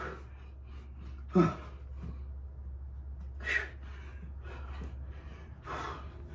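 A man breathing hard during exercise reps, a heavy exhale about every two seconds; the one about a second and a half in is the loudest, with a short voiced grunt. A steady low hum runs underneath.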